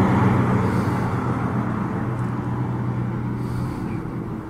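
Road traffic: a motor vehicle's engine running with a steady low hum that slowly fades.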